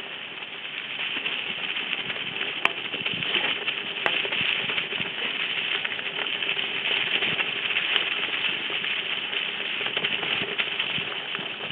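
Mountain bike riding along a singletrack trail covered in dry fallen leaves: a steady rustling noise of tyres rolling over the leaves, with a couple of sharp clicks a few seconds in.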